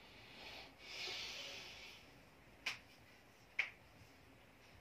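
A person's hard breath out, a hiss lasting about a second, followed by two short faint clicks.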